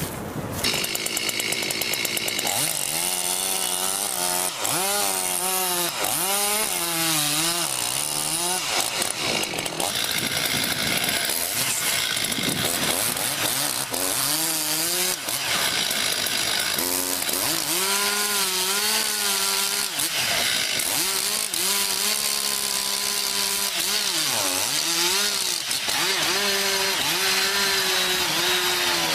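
Chainsaw running at high revs and cutting into a tree trunk. Its engine pitch sags and recovers again and again as the chain bites under load.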